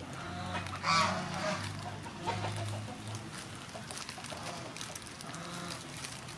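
A chicken clucking twice, loudest about a second in, over the faint crinkle of plastic cling film being wrapped and squeezed around a stuffed pepper.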